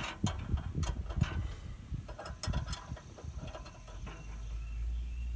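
Ratchet wrench clicking in short, uneven strokes. A low rumble comes in about four seconds in.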